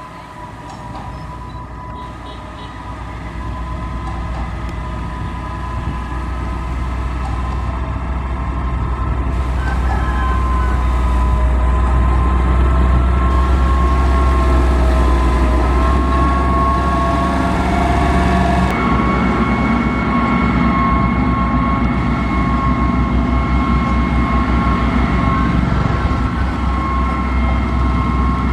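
Heavy diesel motor grader running: a deep engine rumble with steady mechanical whines over it, growing louder over the first dozen seconds and then holding steady, with a sudden change in the sound about two-thirds of the way through.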